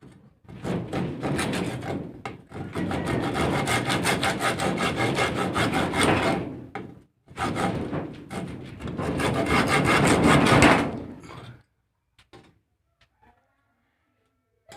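Hand saw cutting wood with fast back-and-forth strokes, in two long bouts with a short break between them. It stops about twelve seconds in, showing how sharp the blade is.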